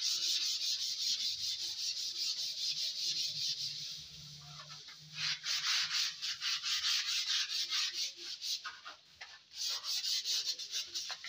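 Sandpaper rubbed by hand over dry wall putty, likely 180-grit waterproof paper, in quick back-and-forth strokes with a scratchy hiss. The strokes ease off briefly about four seconds in and again near nine seconds. This is the sanding stage that smooths the putty before primer goes on.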